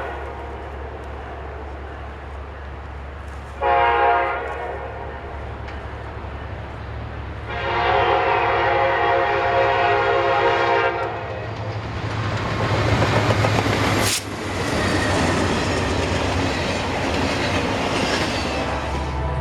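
Locomotive air horn sounding a multi-note chord: a short blast about four seconds in, then a long blast of about three and a half seconds, finishing the long-long-short-long pattern of a grade-crossing warning. The train then passes close by with a rising rush of wheel and rail noise and a single sharp bang about fourteen seconds in.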